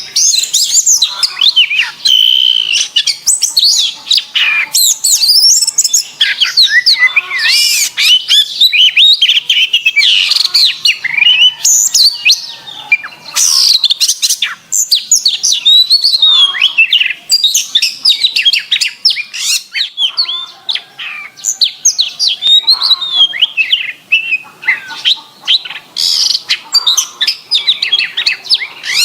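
Domestic canary singing a long, clear, continuous song: rapid twitters, trills and quick rising and falling whistles with hardly a break.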